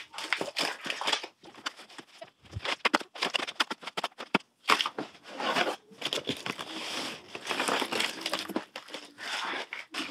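Frozen packs of hamburger in plastic wrap crinkling and knocking as they are pulled from a cardboard box and stacked into a chest freezer, in quick, irregular handfuls.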